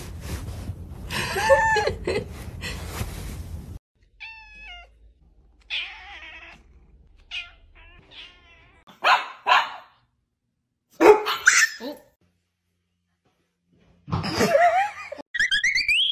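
Cats meowing in a run of short separate calls that bend up and down in pitch, some repeated quickly, broken by abrupt cuts and a stretch of near silence about twelve seconds in.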